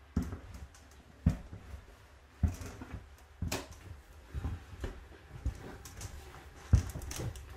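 Footsteps walking slowly along an aircraft cabin aisle, about one step a second: dull thumps, some with a light click, over a faint low hum.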